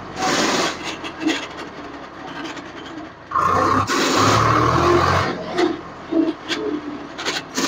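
Swaraj 735 FE tractor driving in reverse. Its engine is given a burst of throttle for about two seconds in the middle and then let off, with scraping and knocking from the drivetrain. This is the reverse-gear noise that shows only when the throttle is suddenly given or released.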